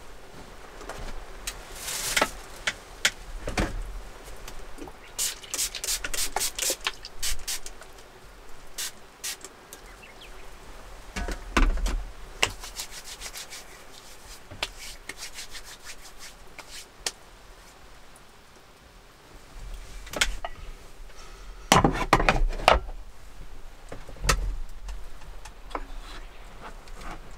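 Handling noises at a wooden table and wall rack: rubbing with scattered light knocks and clicks, a quick run of clicks about five seconds in and a cluster of knocks a little after twenty seconds.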